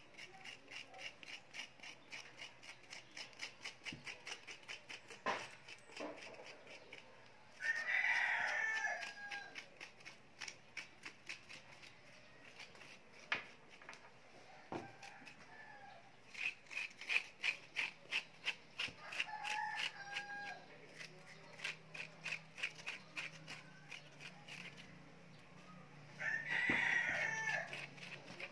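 A rooster crows twice, once about eight seconds in and again near the end, with fainter calls in between. Underneath runs a quick, repeated scraping of a metal spoon scooping cooked banana flesh from its peel over a steel bowl.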